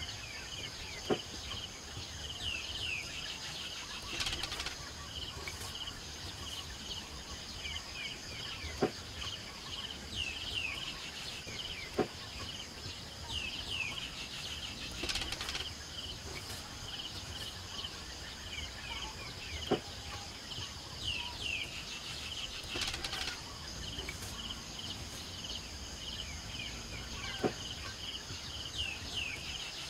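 Outdoor countryside ambience: birds calling, with short falling chirps every few seconds over a steady high-pitched insect whine. A few faint sharp ticks come now and then.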